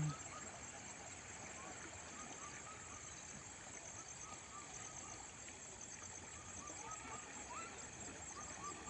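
Faint outdoor ambience: a steady high-pitched insect buzz with a fine pulsing, scattered short chirps, and a low, even hiss underneath.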